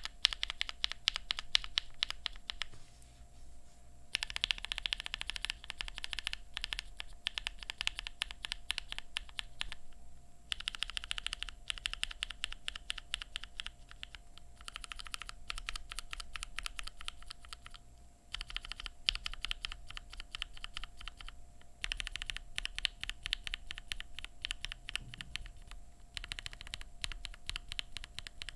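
Mechanical keyboard typing on lubed and filmed linear switches in an aluminium-plate Vega board with GMK keycaps: fast runs of keystrokes in about seven stretches, each a few seconds long, with brief pauses between them.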